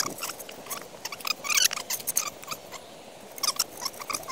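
Cord rubbing and scraping against wooden poles as it is wrapped round them and pulled tight for a tripod lashing, in a run of short, irregular scratchy squeaks and rustles.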